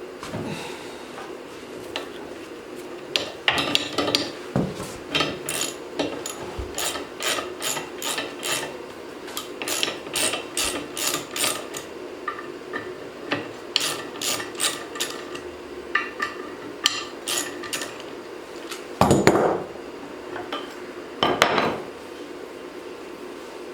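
Socket ratchet clicking in short runs, about three or four clicks a second, while loosening the 5/8-inch bolts that hold a wood chipper knife to its drum. Two louder, longer clanks or scrapes come near the end, over a steady hum.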